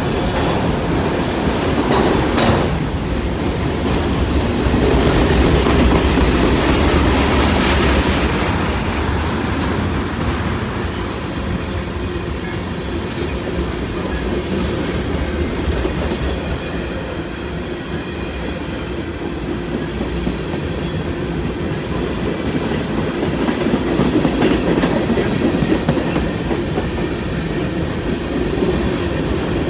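Freight cars of a long CN freight train rolling past: a steady rumble with wheels clicking over the rails, and a clunk about two seconds in. Faint, short high squeaks recur through the middle.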